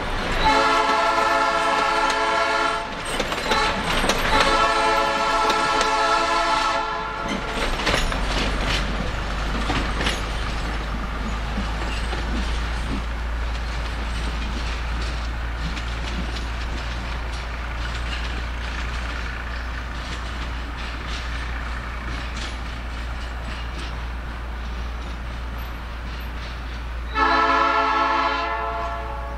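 Narrow-gauge passenger train going by: its horn sounds in two long blasts over the first seven seconds while the carriages roll past, then wheels click over the rail joints. A steady low rumble follows as the train draws away, and the horn sounds once more, briefly, near the end.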